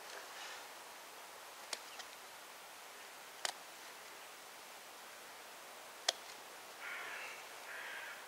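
Rush stems being braided by hand, giving a few sharp clicks and crackles over a quiet hiss, with a short scratchy rustle near the end.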